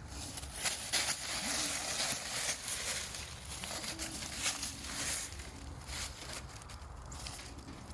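Irregular rustling and crunching noise, coming in uneven bursts.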